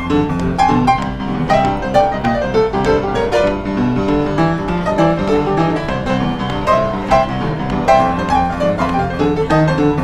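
Upright piano played with both hands in a fast rock and roll style: quick, busy notes over a low bass line.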